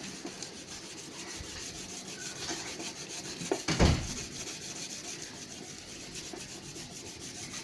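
Crumpled aluminium foil being scrubbed over a rusted chrome-plated mudguard wet with Coca-Cola, a steady scratchy rubbing to lift the rust. A brief louder knock comes about 4 seconds in.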